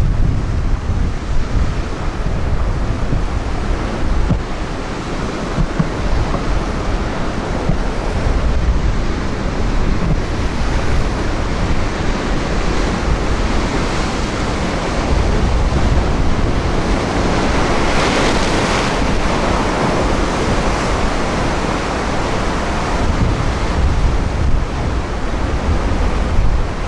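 Ocean surf breaking and washing over a rocky shore shelf, with wind buffeting the microphone in a low rumble. One wave's wash swells louder about two-thirds of the way through.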